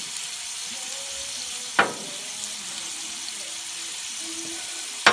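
Potato rounds sizzling on a hot flat-top griddle, with a metal spatula scraping sharply across the plate twice, about two seconds in and at the very end.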